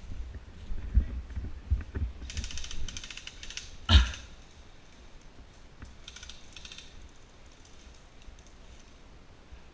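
Airsoft gun firing rapid full-auto bursts, a fast mechanical rattle about two seconds in and a fainter one around six seconds, with a single sharp crack near four seconds. Low thumps come early on the microphone.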